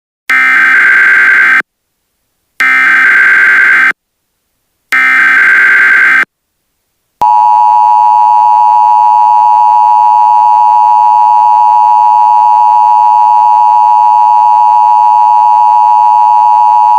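Mock Emergency Alert System tones: three short bursts of SAME header data, each about a second and a quarter long with short silent gaps between them. About seven seconds in comes the EAS two-tone attention signal, a loud steady dual-tone buzz near 1 kHz held for about ten seconds.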